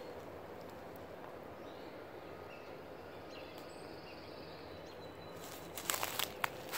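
Quiet outdoor ambience, then footsteps crunching on dry fallen leaves over the last second or so.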